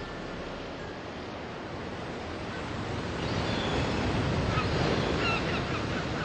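Ocean surf: a steady wash of waves that swells about three seconds in, with short high chirps over it in the second half.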